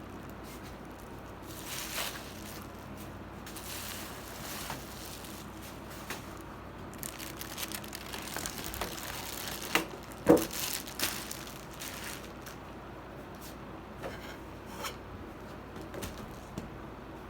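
Packaging being handled during an unboxing: intermittent rustling and crinkling with scattered sharp clicks, the loudest cluster about ten seconds in.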